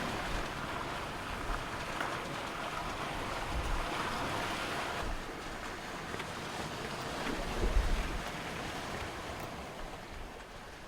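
Water rushing along the hull of a sailing yacht under way, with wind buffeting the microphone; a louder low gust comes about eight seconds in.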